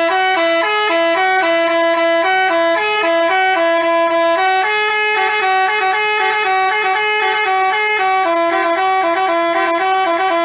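Telolet basuri bus horn, a multi-trumpet air horn, playing a quick tune. It gives a loud string of stepped notes that cuts in suddenly.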